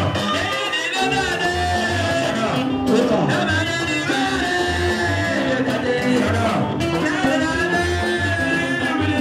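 Music with a singing voice over guitar and a steady bass beat.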